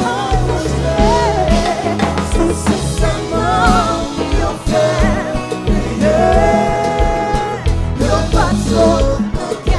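Live band music with a lead vocalist singing wavering, held melody lines over a steady bass.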